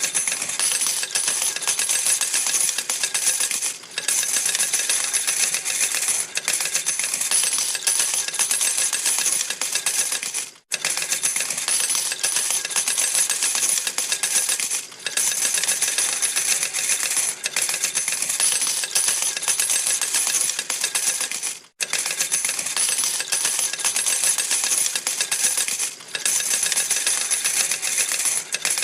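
Coins pouring out of a slot machine in a steady stream, a dense metallic jingling clatter of coins landing in the payout tray. The stream breaks off for a moment a few times, most sharply about a third and two thirds of the way through, then carries on.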